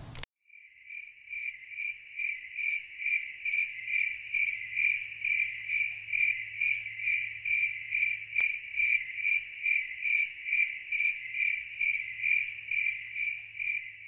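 Cricket chirping: a steady high trill pulsing evenly about three times a second, starting abruptly about half a second in.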